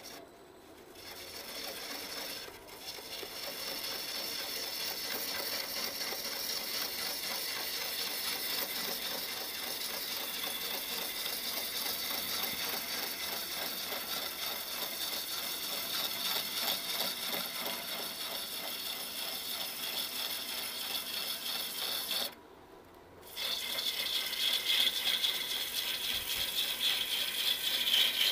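A turning gouge cutting into a large wooden vessel spinning on a lathe, a continuous chattering, rattling scrape. The cut stops for about a second near the end and then resumes louder.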